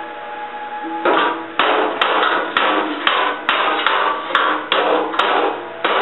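A rapid series of about a dozen sharp strikes on the steel fender patch, roughly two a second, starting about a second in. Each strike dies away quickly.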